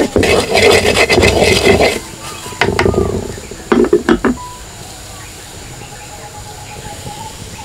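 Wooden spoon stirring and scraping chopped sweet leaf mallum around a clay pot, a rough rasping with small knocks. It comes in bursts and stops about four seconds in.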